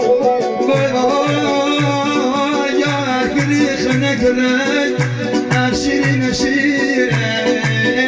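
A male singer sings into a microphone over an electronic keyboard, with a steady beat of about two low thumps a second.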